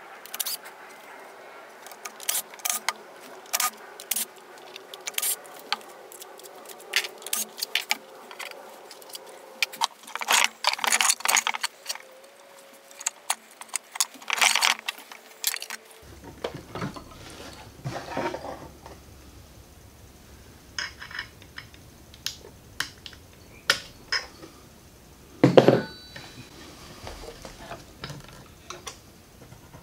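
Scattered metallic clicks, clinks and rattles of a screwdriver and metal parts as a battery pack is worked on by hand, with a louder clank about three-quarters of the way through.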